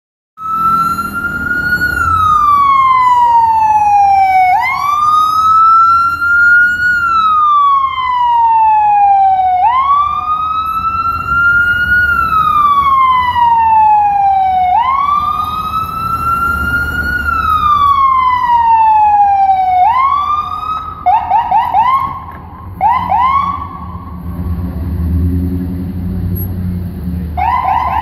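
Ambulance electronic siren sounding up close, wailing in slow up-and-down sweeps about every five seconds. After about twenty seconds it switches to short groups of quick rising chirps. A low rumble of street traffic runs underneath.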